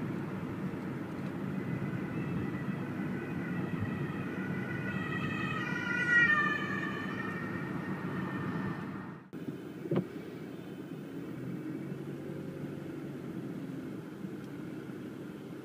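Road noise inside a moving car, with an ambulance siren sounding from about four to eight seconds in, loudest about six seconds in. The road noise cuts off abruptly about nine seconds in, leaving a quieter steady sound.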